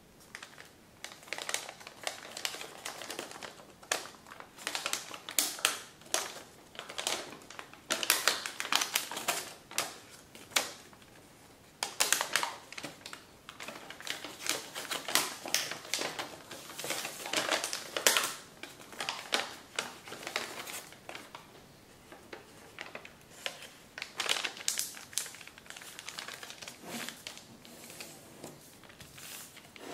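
A large sheet of Kami origami paper being folded, creased and flattened by hand: irregular crinkling and crackling with quick clicky taps, pausing briefly about 11 and 23 seconds in.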